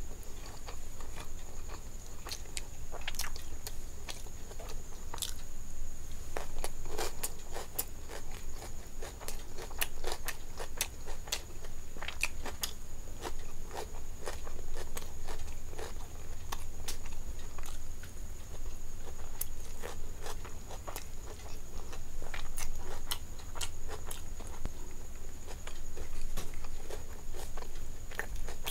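Close-miked chewing and mouth sounds of a person eating rice and curry by hand, with many small wet clicks and smacks scattered throughout, along with fingers mixing rice on the plate. A faint steady high whine runs underneath.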